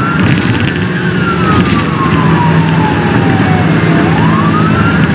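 Police car siren wailing: the pitch climbs, falls slowly over about three seconds and climbs again near the end, over the steady engine and road noise of the squad car in pursuit.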